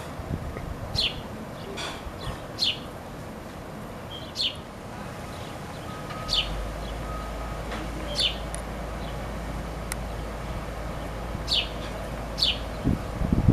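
Baby house sparrow chirping for its parent: short, high, down-slurred chirps, about nine of them, spaced irregularly a second or two apart.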